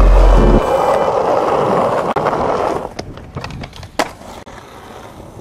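Skateboard wheels rolling over a concrete skatepark surface, a steady rumble that fades out about three seconds in. A few sharp clacks of the board follow, the loudest about four seconds in.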